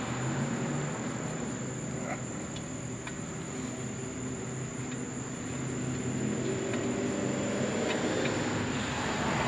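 Steady outdoor insect chirring with a constant high whine, and a few faint light clicks as a brass check valve fitting is turned by hand on a drained air compressor tank.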